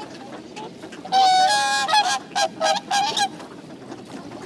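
Whooper swans calling: one long, loud trumpeting call about a second in, followed by a quick run of shorter honking calls.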